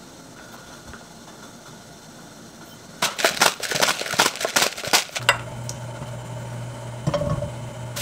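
Metal spoon stirring and scraping spice powders in a small ceramic bowl: a quick run of clinks and scrapes for about two seconds, starting about three seconds in. A steady low hum then comes in and runs on.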